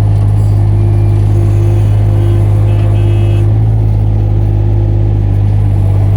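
Mini excavator engine running steadily at close range, a loud, even low drone with a faint steady whine above it.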